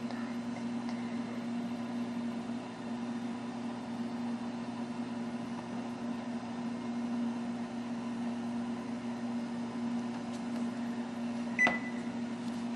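Kitchen oven running with a steady electrical hum during baking. Near the end a sharp click comes with a brief high beep.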